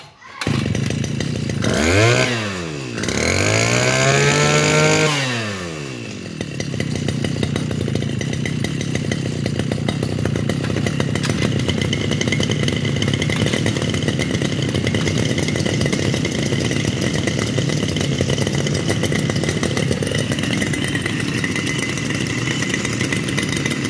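Small two-stroke Mitsubishi T240 mower engine revved up and let fall back twice, a short blip and then a longer rev, before settling into a steady idle.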